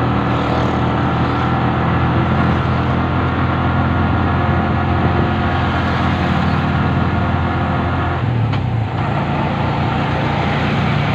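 Engine of the moving vehicle running steadily, with road and wind noise. Its note shifts about eight seconds in.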